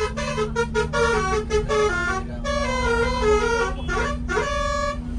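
Bus's multi-trumpet 'basuri' telolet air horn playing a tune of quick stepping notes, with two rising swoops near the end and then a held note that cuts off. A steady low hum runs underneath.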